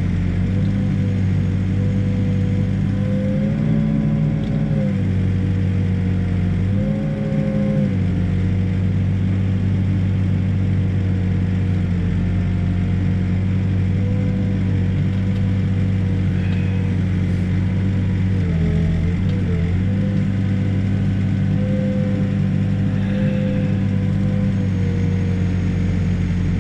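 Backhoe's diesel engine running steadily while it digs. Its pitch rises briefly twice in the first third and dips once about two-thirds of the way through.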